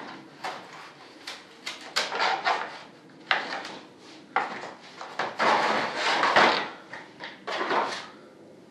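RC jet vertical-stabilizer mold being worked by hand to free the part inside: a string of sharp clicks and knocks, with longer scraping creaks in the second half.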